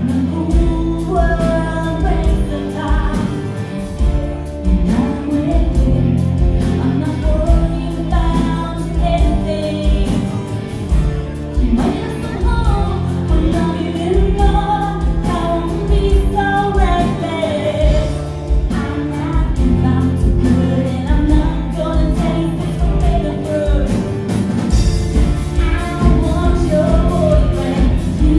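Live band playing a song: a woman singing over strummed acoustic guitars, electric guitar, bass guitar and a drum kit.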